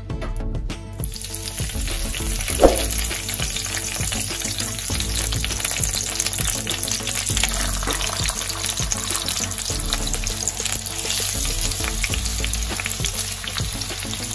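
Masala-coated salmon pieces sizzling in a little oil in a frying pan, a steady crackling hiss that comes up about a second in. A single brief sharp knock sounds a little over two seconds in.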